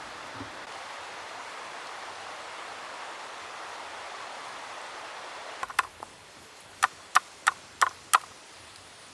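A steady hiss, then a sudden change to a series of sharp knocks: a few close together, then five evenly spaced at about three a second.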